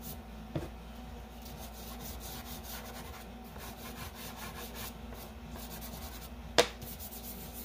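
Chalk pastel stroked back and forth over paper: a run of quick, even rubbing strokes, with one sharp tap about a second before the end.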